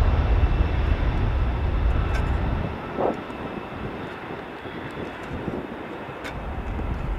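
Boeing KC-135 tanker's four turbofan engines at takeoff power as it accelerates away down the runway. The deep rumble drops off sharply about two and a half seconds in, leaving a fainter steady jet noise.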